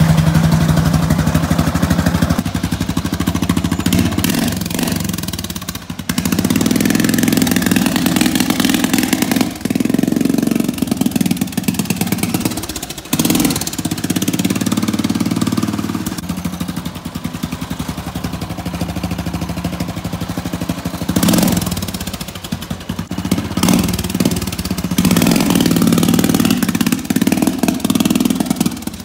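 Riding lawnmower's Briggs & Stratton engine running through a straight open exhaust pipe, revving up and backing off several times as the mower is driven around. It idles fine but pops and sputters when the throttle is stomped, which the builder traced to the crankcase vent being tied into the fuel pump so the crankcase could not breathe.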